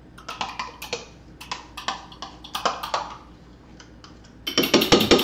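A spoon clicking and scraping against a measuring cup of Greek yogurt, in scattered taps. Near the end comes a louder, quick run of rapid knocks as the spoon works the yogurt out of the cup into the bowl.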